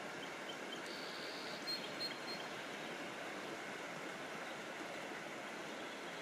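Steady hiss of cold rain falling, with a few short, high bird chirps about one to two seconds in.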